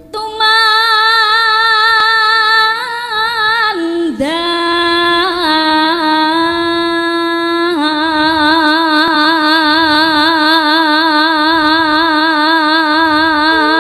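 Javanese sinden (female gamelan singer) singing into a microphone, drawing one syllable out over long held notes with a wide, even vibrato. The line slides down in pitch about four seconds in and settles on a long, lower held note.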